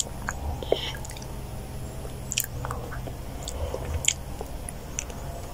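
A child eating champorado, a soft chocolate rice porridge, with a metal spoon: soft chewing and mouth sounds, with a few light, scattered clicks of the spoon.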